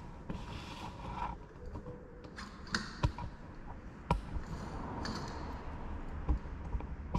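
A handful of irregular metal clicks and knocks, over low handling rumble, as a car's front suspension strut with its coil spring and top mount is handled and fitted together by hand.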